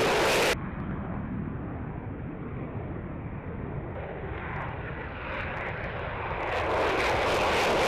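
Military jet engines running during takeoff: a very loud blast that cuts off abruptly about half a second in, a steadier, quieter jet noise after it, then the engine noise building again to full loudness over the last second and a half.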